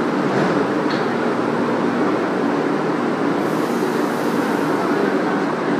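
Metro train standing at an underground platform with its doors open, giving a steady running noise mixed with the bustle of the station; a faint higher hiss joins a little past halfway.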